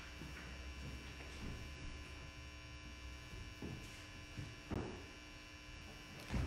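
Quiet room tone: a steady electrical hum with a low rumble in the first half, and a few soft knocks and rustles in the second half.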